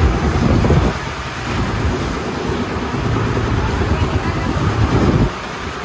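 Motorized outrigger boat's engine running steadily underway, with water rushing along the hull and wind buffeting the microphone in two louder gusts, in the first second and again near the end.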